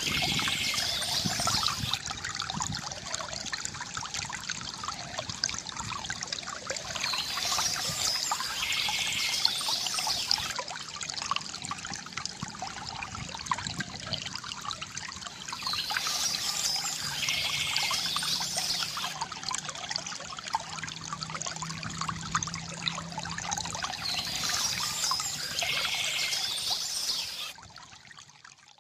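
Small stream trickling and splashing over stones, with a songbird singing a short chirping phrase that comes back about every eight or nine seconds. The water sound drops away abruptly near the end.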